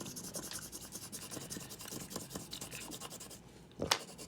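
Colored pencil scratching rapidly back and forth across paper laid over a leaf, making a leaf rubbing. The strokes stop about three and a half seconds in, followed by a single sharp tap.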